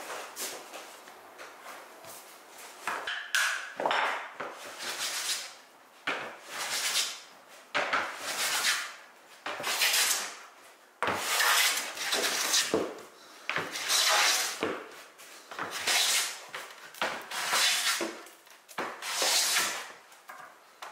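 Steel card scraper pushed in repeated strokes across a flat hardwood board, each stroke a rasping scrape about a second long, about a dozen strokes at one to two seconds apart.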